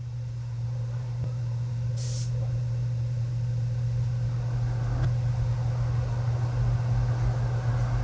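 A motor starting up and running steadily with a low hum, with a brief hiss about two seconds in.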